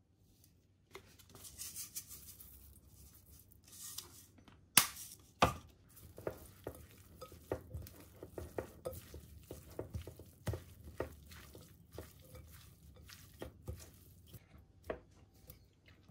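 Seasoned blanched spinach being mixed in a glass bowl: a wooden spoon turns the leaves, with two sharp knocks against the bowl about five seconds in. Then hands knead the wet leaves, with many small squishes and light taps on the glass.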